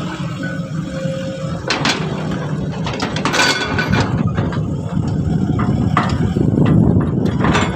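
Isuzu dump truck's diesel engine running with a steady low drone that gets louder toward the end, while sharp metallic clanks and knocks ring out several times, the biggest about two seconds in and another a little after three seconds.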